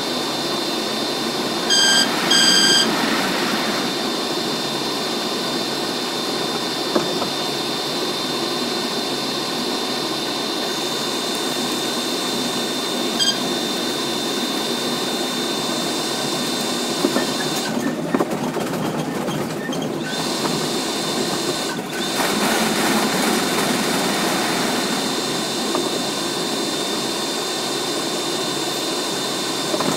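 Sped-up recording of an R62A subway train ride: a fast, continuous rattling clatter of the train running. Two short high tones sound about two seconds in, and a thin steady high whine runs underneath.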